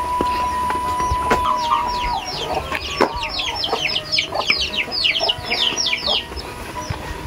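Chickens calling, with a fast run of high, falling peeps from about two to six seconds in, over background music with long held notes.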